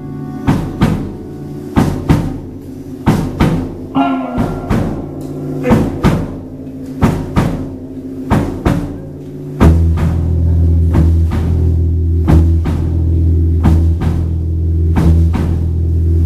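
A live band plays an instrumental intro: evenly spaced drum hits with guitars. About ten seconds in, a loud, sustained low bass joins and the whole band gets louder.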